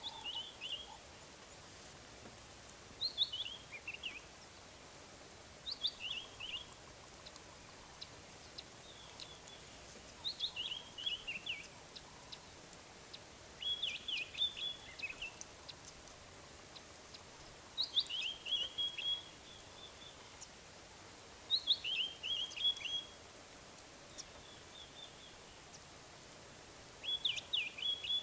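A bird singing a short phrase of quick notes that step down in pitch, about a second long, repeated every three to four seconds over a faint steady background hiss.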